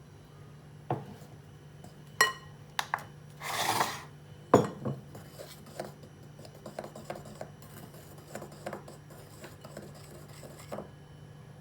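Kitchen utensils and a bowl clinking and knocking during hand baking prep, with one ringing clink about two seconds in. A brief rushing sound comes after it, then one sharp knock, then a run of small quick taps and scrapes that stop near the end.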